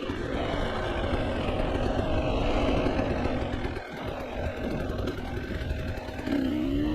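Off-road vehicle engine running at low revs over rough trail ground, with rattling and tyre noise, briefly easing off about four seconds in and revving up again near the end. The footage plays at one and a half times speed, so the sound is pitched up and quickened.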